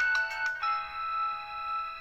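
Polyphonic MIDI ringtone of a Samsung SCH-F309 phone: a run of quick synthesized notes ends about half a second in on a held closing chord that slowly dies away.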